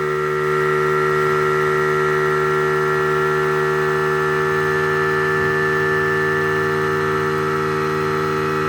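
Air compressor running steadily while it inflates an inflatable pool: an even, unbroken hum with several steady tones.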